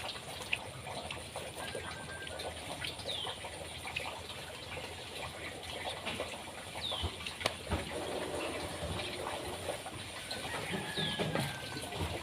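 A bird repeating a short, falling call every three to four seconds, with a few other short bird notes, over scattered light knocks and rustling.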